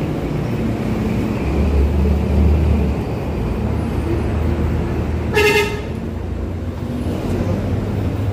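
Road traffic running steadily, with a heavy vehicle's low rumble swelling about two seconds in. A vehicle horn toots once, briefly, about five and a half seconds in.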